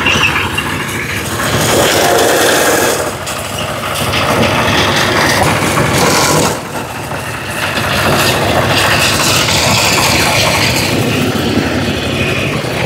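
Single-cylinder diesel engine of a homemade ride-on mower built on a two-wheel walking tractor, running steadily under load as its drum cutter mows through tall grass. The level dips briefly about six and a half seconds in.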